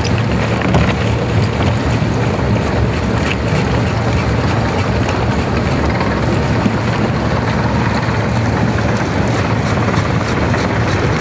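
A large engine running steadily at a constant speed, a low hum under a loud, even rumble of mechanical noise.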